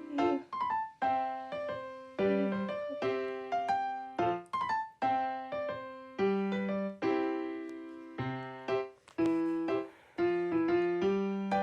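Background piano music: a light tune of chords struck roughly once a second, each note ringing and fading before the next.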